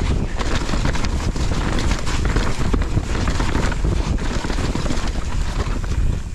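Wind rushing over an action camera's microphone as a mountain bike speeds down a dirt trail, with the rumble of its tyres and frequent rattling knocks from the bike over rough ground.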